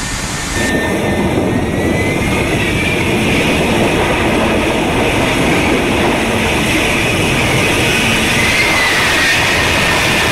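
F-35B fighter jet engine running loud, a dense roar with a high whine that rises a couple of seconds in and again near the end.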